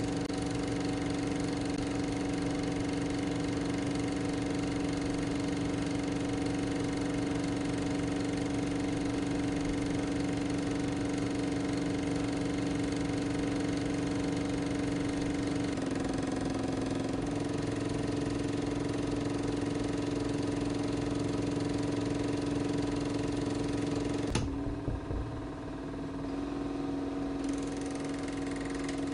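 Steady machine-like drone holding one pitch. It shifts slightly about 16 seconds in, and a sharp click comes about 24 seconds in.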